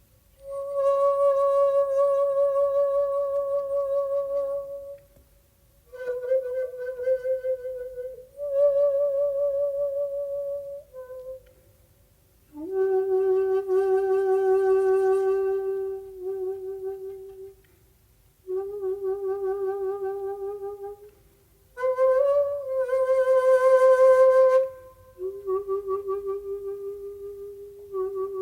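Solo shakuhachi (Japanese end-blown bamboo flute) playing slow phrases of long held notes with a wavering vibrato, each phrase set off by a pause of a second or so. About three quarters through, one phrase is blown with a strong breathy rush.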